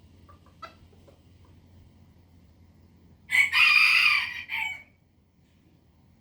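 A rooster crowing once, a loud call of about a second and a half starting about three seconds in, with a short break before its final note.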